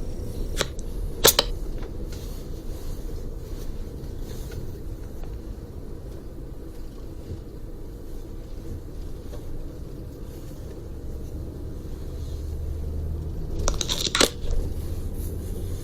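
Inside a moving tour coach: the steady low rumble of the bus's engine and tyres, with two sharp clicks about a second in and a short clatter of clicks near the end.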